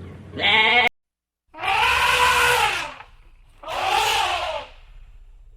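An animal calling three times: a short call near the start, then, after an abrupt break, two longer calls about a second and a half apart, each rising and then falling in pitch.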